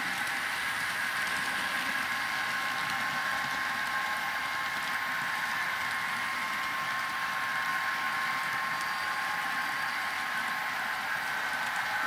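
N scale model freight train with a DCC sound-equipped diesel locomotive running past: a steady tinny hiss with a faint steady whine.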